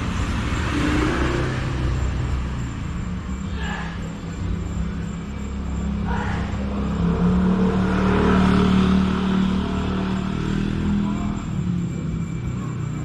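Street traffic: the engines of passing vehicles run steadily, with one passing louder around the middle.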